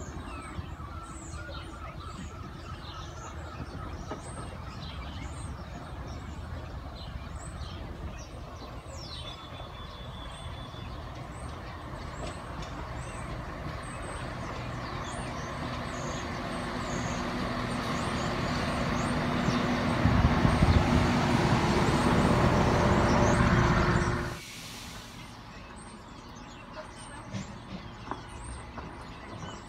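Class 171 Turbostar diesel multiple unit running into the station, the hum of its diesel engines and the wheel rumble growing steadily louder to a peak before cutting off abruptly. After that comes a quieter background with birds chirping.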